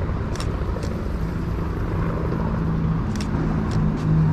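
City street traffic: a steady low rumble with a vehicle engine hum that grows louder in the second half. Four sharp clicks sound over it, a pair near the start and a pair near the end.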